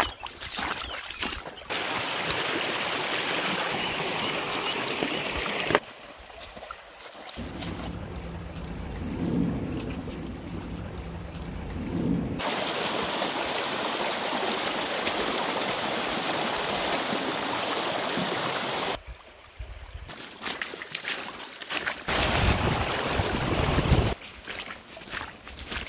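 Shallow rocky mountain stream running over stones, a steady rushing and trickling of water that changes suddenly several times between shots. Gusts of wind buffet the microphone near the end.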